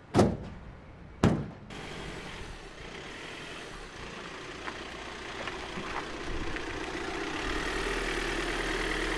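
Two loud metallic clunks about a second apart from the rear cargo doors of a Renault Master van. Then a refrigerated box truck's engine runs steadily, growing louder near the end.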